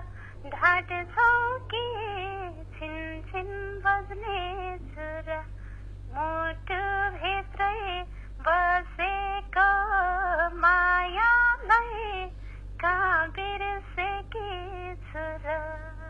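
A woman singing a Nepali folk song unaccompanied, in short sung phrases, played back from a phone voice message with a steady low hum underneath. The singing stops just before the end, leaving the hum.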